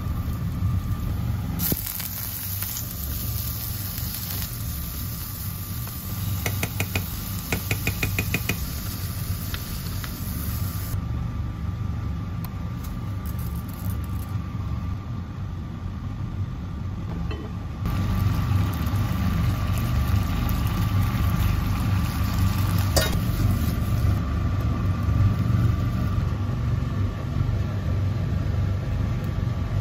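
Minced garlic sizzling in oil in a frying pan, with tongs stirring and clicking against the pan, then spaghetti boiling in a pot, over a steady low hum.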